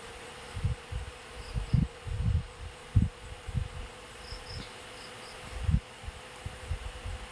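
Insects buzzing and chirping: a steady hum with short high chirps in small groups of two or three. Irregular low thumps sound over it, louder than the insects.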